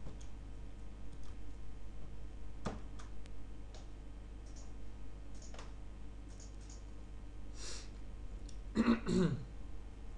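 A few sharp computer mouse clicks over a steady low electrical hum. Nearly nine seconds in, a person briefly clears their throat, the loudest sound here.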